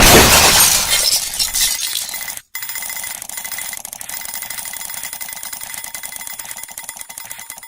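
Alarm clock ringing. A loud burst of metallic bell ringing fades over about two seconds, then after a brief dropout a quieter, rapid, rattling ring continues.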